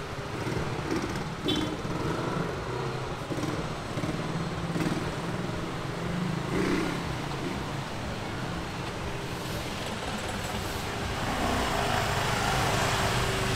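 Street ambience in a narrow lane: the low running hum of a motor scooter and a car engine. It grows louder over the last few seconds as the vehicles come close.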